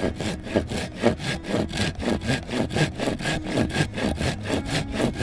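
Folding handsaw cutting through a wooden beam, in a quick, even rhythm of rasping strokes, about six or seven a second.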